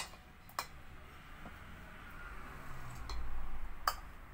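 Glass clip-top storage jars being set down and shifted on a table: a handful of sharp clinks and knocks, with a low rumble about three seconds in.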